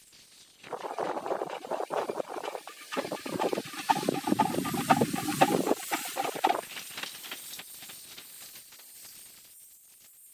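Steam locomotive hissing with many quick, uneven puffs of steam, loudest over the first six seconds and then fading away.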